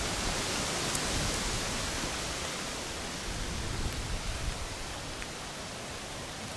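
Steady rain falling, an even hiss, with a few faint clicks.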